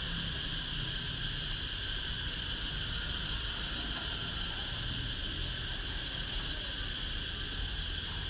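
Steady high-pitched insect drone that holds without a break, over a low background rumble.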